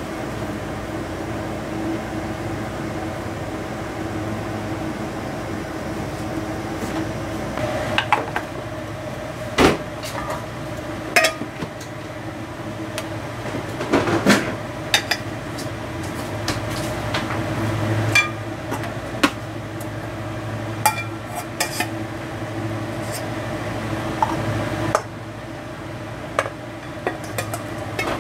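A white plastic rice paddle knocking and scraping against an aluminium rice pot and a metal bowl as cooked rice is scooped out: scattered clicks and knocks starting about eight seconds in. A steady low hum runs underneath.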